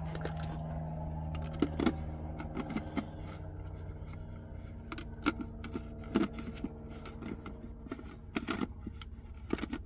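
Kitchen items, a blender among them, being handled and set up: scattered clicks, knocks and scrapes over a steady low hum.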